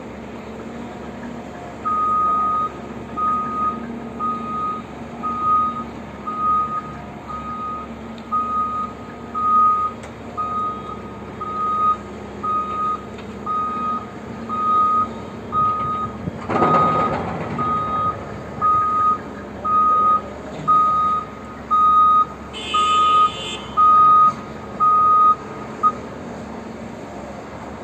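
Reversing alarm of a Caterpillar 730 articulated dump truck beeping about once a second as it backs up to the excavator, over the steady hum of the machines' engines. A short rush of noise breaks in about two-thirds of the way through, and the beeping stops shortly before the end as the truck comes to a halt.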